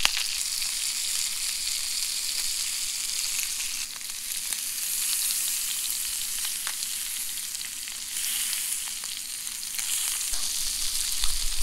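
Trout fillets sizzling in a frying pan: a steady hiss with small crackles throughout.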